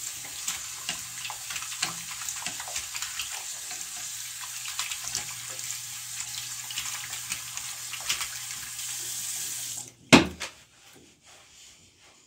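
Bathroom sink tap running, with water splashing over hands being scrubbed under it; the flow stops abruptly about ten seconds in, followed straight away by a single sharp knock.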